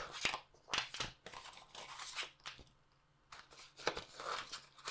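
Cardboard packaging being handled: irregular rustling and scraping of card trays being lifted out of a phone box, with a quiet pause about midway.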